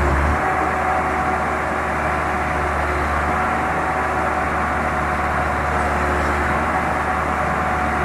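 Sonalika tractor's diesel engine running with a steady low drone.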